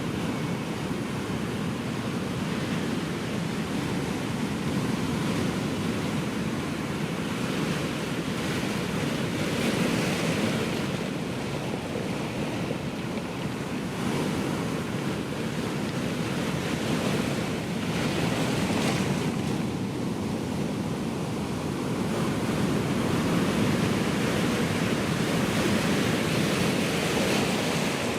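Ocean surf: waves breaking and washing in a continuous rushing noise that swells every several seconds, with a steady wind-like hiss beneath.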